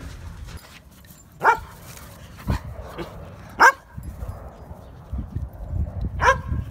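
A dog barking: three sharp single barks about two seconds apart, with a knock between the first two.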